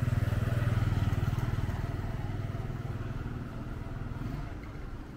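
A motorcycle engine passing close by, loudest about a second in and then fading away over the next few seconds.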